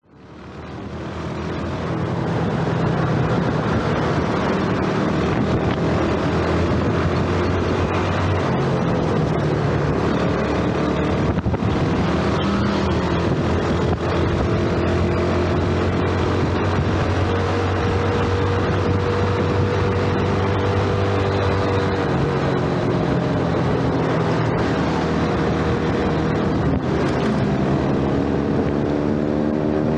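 Yamaha 115cc underbone motorcycle's single-cylinder four-stroke engine running on the move, fading in over the first couple of seconds. Its note climbs and falls with the throttle, with a clear drop in revs about two-thirds of the way through and a climb again near the end.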